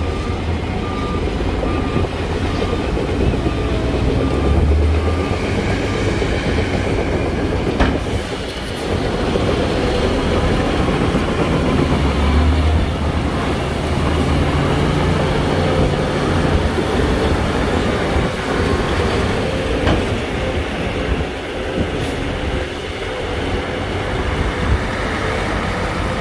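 Heavy diesel earthmoving machinery running under load, with a deep engine rumble and metallic clanking and knocks. A reversing alarm beeps steadily for the first few seconds, then stops.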